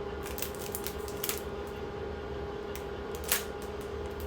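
Light clicks and taps of cosmetic products and packaging being handled, with one sharper click about three seconds in, over a steady low hum.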